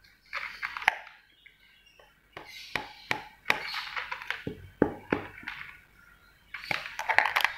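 Angora cat crunching dry kibble from a plastic bowl: irregular sharp crunches and clicks of pellets against the bowl, in three bursts of chewing with short pauses between.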